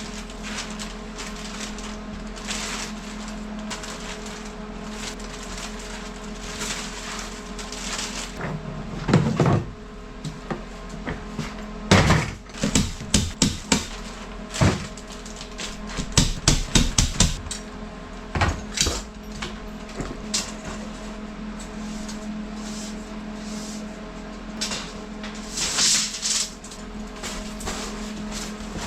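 Hammer blows on wood in quick runs of strikes, about twelve seconds in and again around sixteen seconds, with a few single knocks between, over a steady low hum.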